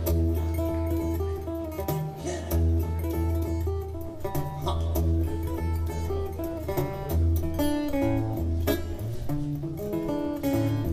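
Acoustic guitar playing an instrumental blues break: a steady, pulsing bass line under picked treble notes, with no singing.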